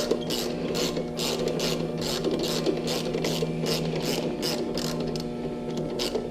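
Hand ratchet wrench clicking in quick, even back-strokes, about four a second, while loosening a nut. A steady low hum runs underneath.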